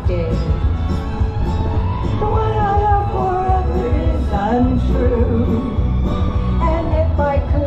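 A young girl singing a solo into a microphone over a backing track with a heavy bass, played through a PA system.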